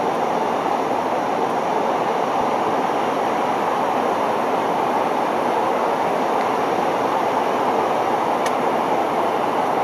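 Steady rushing noise on the flight deck of a Boeing 747-400ERF in flight: airflow and engine noise at an even level.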